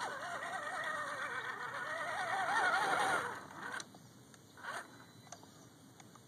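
SCX10 RC crawler's electric motor and drivetrain whining under load as the truck works through mud and water, the pitch wavering with the throttle and rising near the end before it stops about three seconds in. A couple of short clicks follow.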